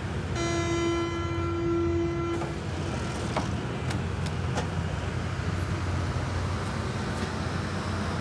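A U-Bahn train's door-closing warning: a steady pitched tone sounding for about two seconds, followed by a few sharp knocks as the doors shut, over the steady low hum of the standing train.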